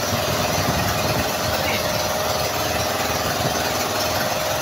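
Outrigger fishing boat's engine running steadily, with a fast low chugging.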